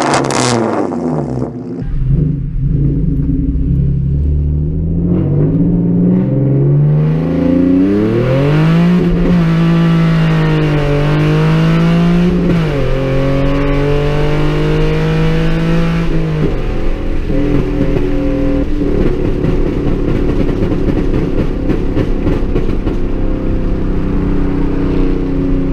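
Hyundai Genesis Coupe 3.8's V6 running through J2 headers, CNT test pipes and a CNT cat-back exhaust, heard from inside the cabin under hard acceleration. After a brief loud burst at the start, the engine note climbs, dips and climbs again through the gears. About two-thirds of the way through it drops to a steady, lower cruising drone.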